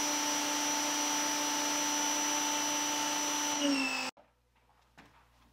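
Electric pressure washer motor and pump running at a steady pitch while water sprays from the gun. About four seconds in, it winds down in pitch and cuts off abruptly, as a total-stop pressure washer does when the gun's trigger is released.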